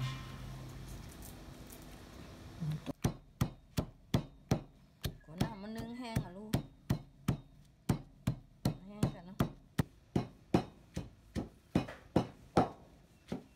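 Stone pestle pounding Thai curry paste of lemongrass, galangal, shallots and dried chillies in a heavy stone mortar: dull knocks at about three strikes a second, starting about three seconds in.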